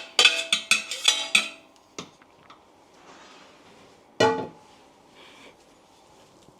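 A potato masher clinking and knocking against a plate while mashing steamed carrots and potatoes, with one louder knock about four seconds in.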